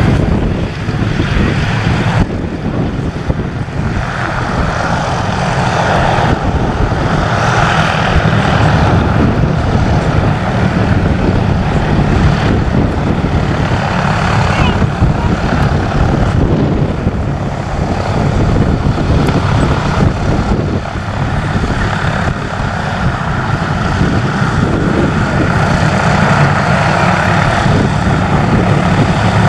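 Propeller airplane engines running steadily, a continuous low rumble with no sharp changes.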